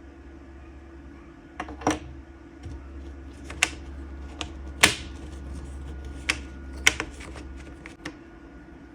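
Toy puzzle pieces being handled, with about ten irregular clicks and knocks as they are picked up and set against each other, loudest about five and seven seconds in, over a steady low hum.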